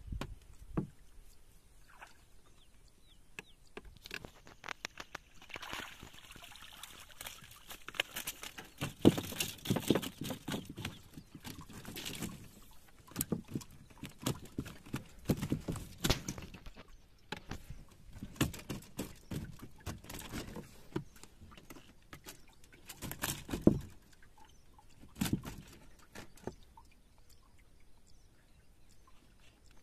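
Shallow water splashing and sloshing in irregular bursts of sharp splashes, busiest in the middle, with quieter gaps near the start and end.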